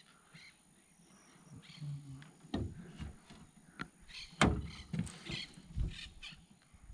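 A handful of irregular knocks and taps in an aluminium jon boat, the loudest about four and a half seconds in.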